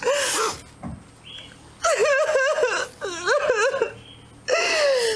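A woman wailing and sobbing in long, high, wavering cries, four bursts with short breaks between them.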